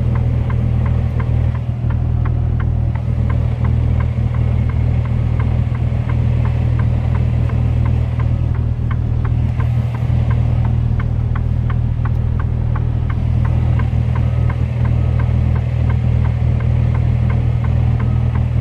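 Mercedes-Benz Antos 1833's 10.7-litre six-cylinder diesel running at low revs, heard inside the cab as a steady low hum. A light ticking repeats evenly over it, about three ticks a second.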